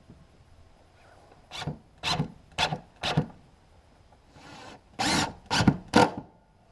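Short scraping strokes against wood: four about half a second apart, then after a pause three more, the first of them longer.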